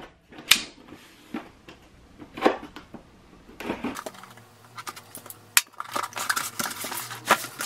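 A cardboard box being handled and opened: a few scattered taps and scrapes at first, then from about halfway a busy run of cardboard and packaging crinkling and rustling.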